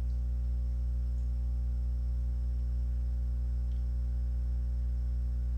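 Steady low electrical hum with a stack of higher overtones and a faint high whine, unchanging throughout.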